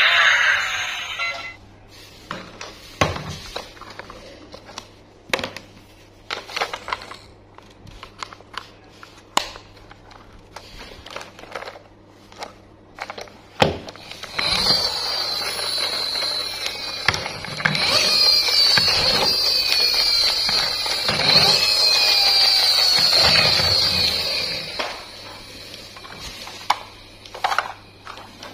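Battery-operated plastic toy trains: an electronic tune that cuts off about a second in, then scattered clicks and knocks of plastic toys being handled. Halfway through, a toy locomotive is switched on, and its motor and electronic sound effects run for about ten seconds before stopping.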